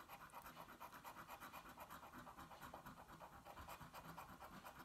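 Faint, rapid, even scratching strokes, several a second: a scratch-off lottery ticket being scratched away to reveal its prize amount.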